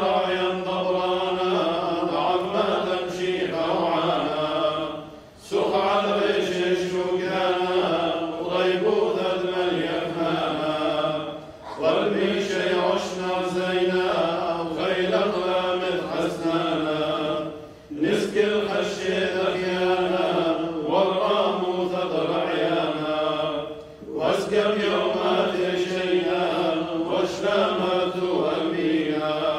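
Clergy chanting the liturgy of the Assyrian Church of the East in long sung phrases of about six seconds each, with a short breath between phrases.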